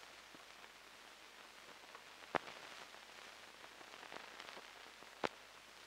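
Faint steady hiss of an old film soundtrack, with two sharp clicks about three seconds apart.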